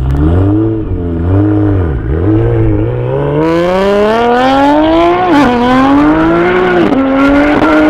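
Nissan GT-R R35 (AMS Alpha 18 build, twin-turbo V6) launching and accelerating hard. At first the revs rise and fall unevenly, then they climb steadily as the car pulls away, with two upshifts, at about five and at about seven seconds in.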